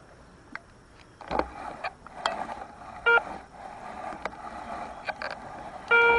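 Metal detector signalling a buried target: two short, steady electronic beeps about three seconds apart, the second one longer. Before them come a few clicks and scrapes of handling in the grass.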